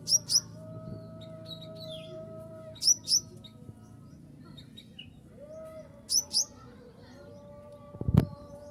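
A konin (kolibri ninja, ruby-cheeked sunbird) calling: pairs of sharp, high, downslurred chirps repeated about every three seconds. A single knock sounds near the end.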